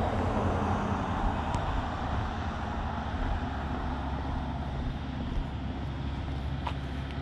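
A car passing on the road nearby: a steady rushing noise over a low rumble, loudest in the first couple of seconds, then easing off.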